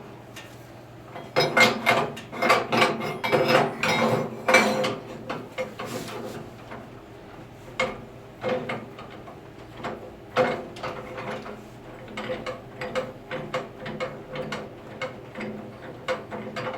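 Metal clicks and knocks as a brass bar is set and clamped in a band saw's vise: a dense run of clanks in the first few seconds, then scattered clicks.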